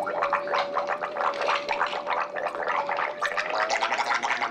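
A mouth-made sound effect: a steady hum with a fast gurgling rattle over it, imitating a blender mixing a margarita.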